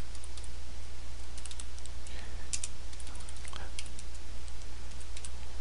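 Computer keyboard keys clicking in irregular keystrokes as a command is typed, over a steady low hum.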